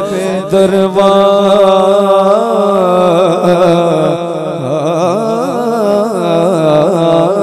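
A man's voice singing a naat unaccompanied into a microphone: a long wordless melismatic passage of held notes that waver and bend slowly in pitch.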